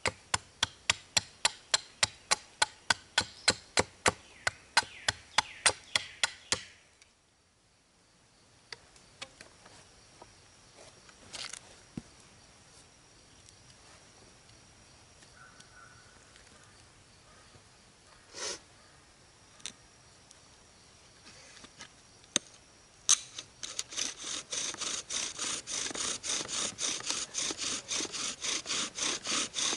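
Knife working poplar wood in quick, even strokes, about four a second, which stop after about six seconds. After a quiet stretch with a few faint clicks, a poplar bow drill's spindle starts grinding in its fireboard near the end, in steady back-and-forth strokes.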